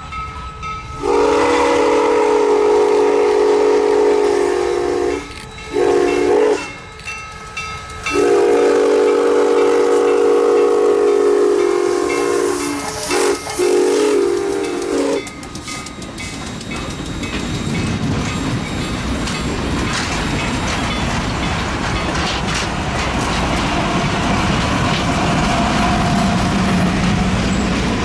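Nathan six-chime steam whistle on steam locomotive FEC 148 sounding a chord: a long blast, a short one, then a long blast that breaks up near its end. Then the passenger cars roll past, wheels clattering over the rail joints.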